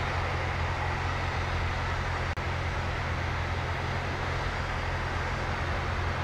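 Light single-engine propeller airplane's engine and propeller droning steadily inside the cabin on final approach to landing, with one very brief dropout a little over two seconds in.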